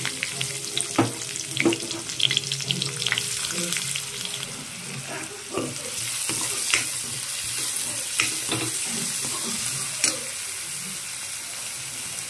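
Chopped onions sizzling in hot oil in a pan. A steel spatula scrapes and knocks against the pan as they are stirred, with sharp clicks now and then.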